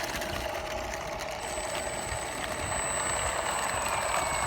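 A radio-controlled model's motor running steadily, with a thin high whine over an even running noise.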